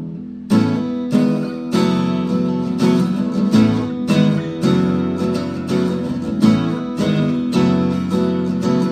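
Background music: strummed acoustic guitar chords in a steady rhythm, coming in strongly about half a second in.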